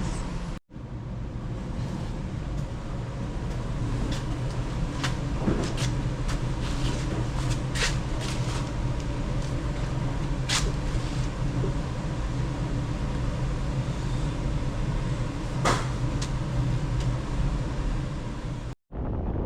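A steady low machine hum with scattered clicks and knocks. It drops out to silence for a moment shortly after the start and again near the end.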